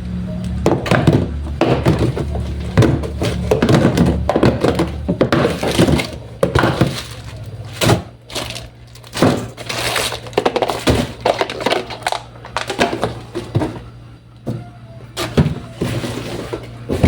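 Groceries and their packaging being handled and unpacked: a run of knocks and thunks as items are moved and set down, with crackling and rustling between them.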